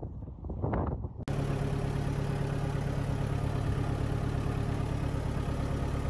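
Belarus tractor's diesel engine running steadily, heard from inside the cab, setting in abruptly about a second in. Before it, faint rustling and crunching of sheep feeding on hay.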